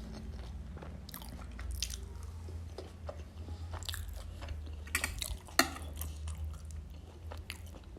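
Close-miked eating of momo dumplings: chewing with scattered short wet smacks and clicks of the lips and mouth. A sharper smack comes a little past halfway. A steady low hum runs underneath.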